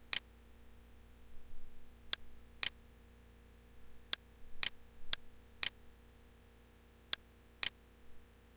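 Computer mouse button clicking, nine short, sharp clicks, several of them in pairs about half a second apart.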